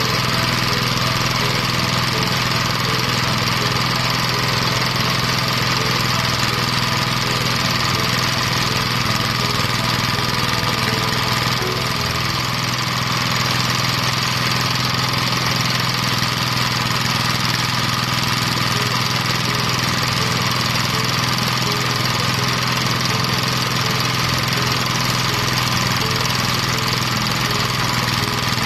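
Engine-driven rice thresher running steadily, a loud, unbroken machine drone with a high hiss over it.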